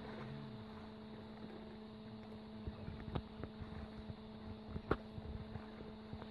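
Steady low hum on one pitch, with a few sharp clicks, the loudest about three and five seconds in.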